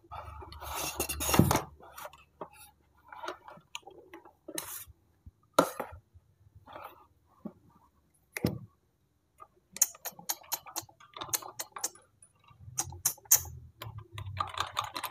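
Hard plastic toys being handled and set down on a table: scattered clicks, taps and knocks of plastic, with a louder stretch of close handling in the first second or so and clusters of quick small clicks later on.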